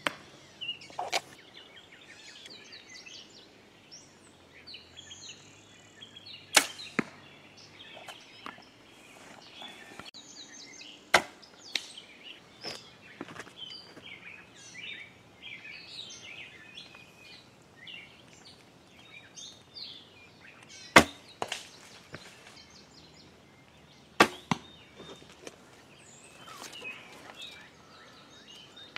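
Compound bow shots: about five sharp cracks several seconds apart, each a bowstring releasing and an arrow striking a foam 3D target.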